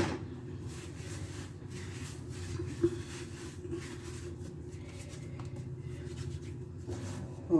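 Hands quietly rolling and shaping soft sweet-bread dough: faint rubbing and handling sounds with a light knock about three seconds in, over a steady low hum.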